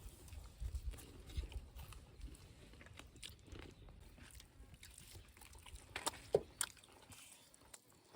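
Faint chewing and biting sounds of someone eating, with a few sharper clicks about six seconds in.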